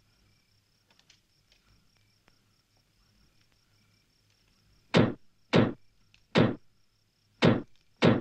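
Crickets chirping faintly, then, about five seconds in, a pistol fired five times in quick succession into a bed, the shots roughly half a second to a second apart.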